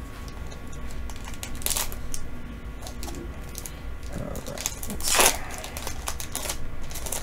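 Foil Digimon card game booster pack crinkling and crackling in the hands, torn open with a loud ripping rasp about five seconds in.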